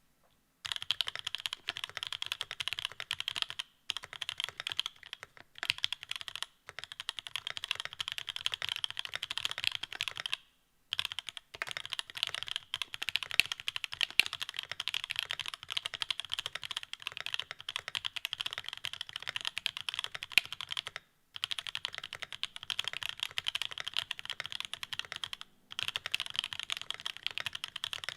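Fast, continuous typing on The New Eighty mechanical keyboard with EQUALZ Banana Split linear switches and Domikey cherry-profile keycaps: a steady clatter of keystrokes broken by a few short pauses.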